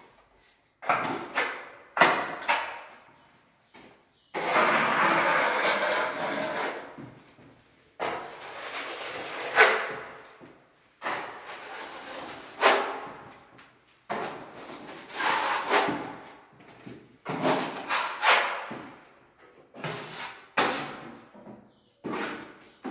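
Wide steel trowel scraping and spreading wet skim-coat filler across a wall in repeated strokes, each a rasping scrape of a second or two, with one longer continuous stroke about four seconds in.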